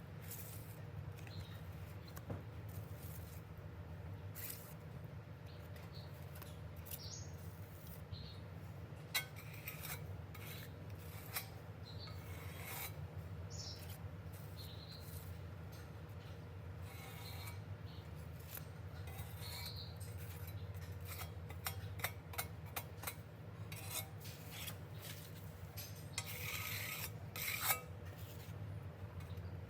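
Hand work on metal parts: rubbing and scraping strokes with scattered light clicks and taps, over a steady low hum.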